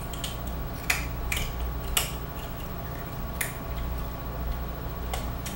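About half a dozen short, sharp crunches and clicks, irregularly spaced, of someone eating hard sugar-glass candy from the cupcake tops, over a low steady hum.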